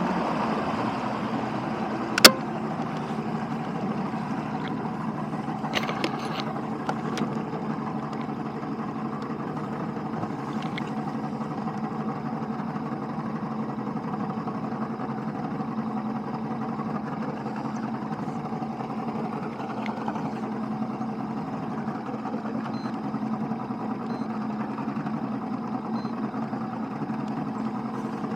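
An engine idling steadily after easing down in the first second, with one sharp click about two seconds in.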